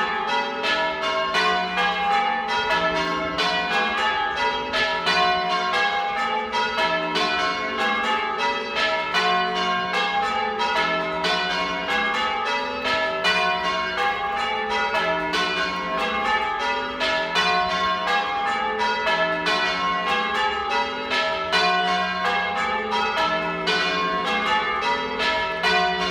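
Church tower bells ringing, struck one after another in a continuous, even stream of several strikes a second.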